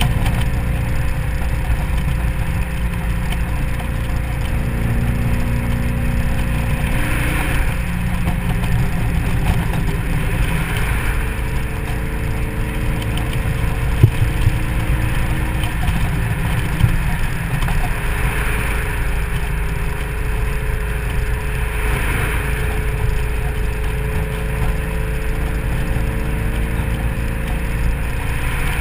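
Supercharged 4.6-litre V8 of a 2003 SVT Mustang Cobra convertible running at freeway cruise with the top down, under heavy wind and road rumble on the microphone. Its engine note shifts slowly, there are several brief swells of hiss, and a single sharp knock comes about fourteen seconds in.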